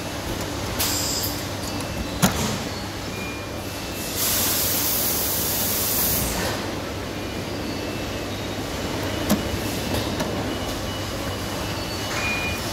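Work on a chest freezer's lid hinge: a sharp metallic click a couple of seconds in, a rushing noise lasting about two seconds near the middle, and another click, over a steady low hum.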